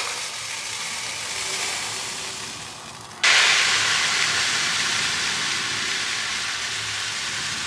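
Granulated sugar pouring into a metal tin, a steady hiss. It turns abruptly louder about three seconds in, when the pour comes from a plastic sugar packet.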